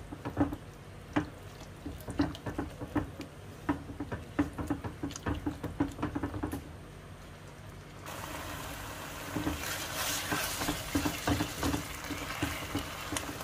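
Spoon or spatula tapping and scraping in a kadhai as mashed boiled eggplant is stirred while it roasts over a high flame. About eight seconds in, a steady frying sizzle comes in under the stirring.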